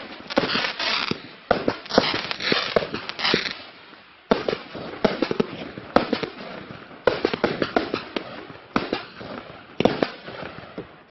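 Klasek Fireworks Show 192 compound fireworks cake (192 shots, 25 mm calibre) firing: about six volleys of sharp reports, each trailed by crackle, with a short lull around four seconds in.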